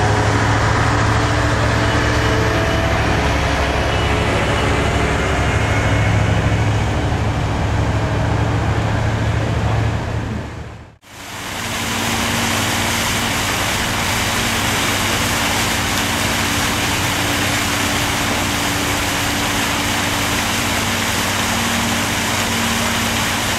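Water pumps running steadily with a deep engine hum as a sunken boat is pumped out. About halfway through the sound cuts out for a moment, then gives way to a steady rush of water gushing from a pump's discharge hose into the harbour, with pump hum underneath.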